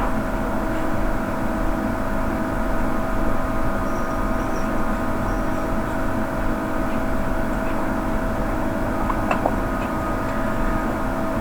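Steady droning hum with a fixed tone, with a few faint light clicks about nine seconds in.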